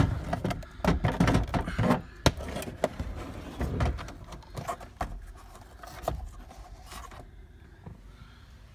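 Plastic gauge cluster of a 2001–2004 Toyota Tacoma being worked out of its dash opening: irregular knocks, clicks and scrapes of plastic on plastic, busiest in the first couple of seconds, then sparser.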